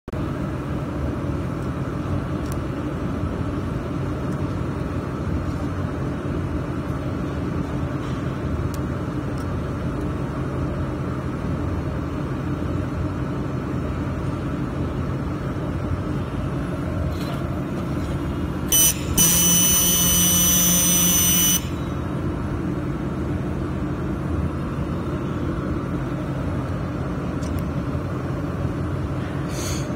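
Steady machine hum from a 1 kW handheld fiber laser welding machine's cabinet. About 19 s in, a louder electronic buzz sounds for about two and a half seconds, then cuts off suddenly.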